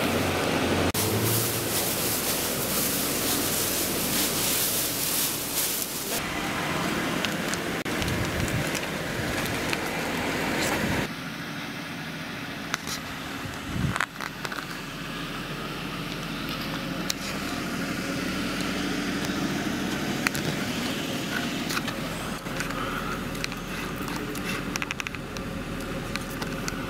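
Jaguar XJ40's straight-six engine idling after a cold start. A loud hiss lies over it in the first few seconds, and there is a single sharp click about halfway through.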